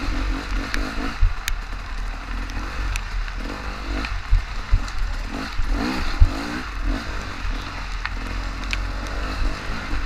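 Honda XR400R dirt bike's four-stroke single engine revving and easing off in repeated surges over a steady low rumble, with sharp knocks and clatter from the bike working over rough ground.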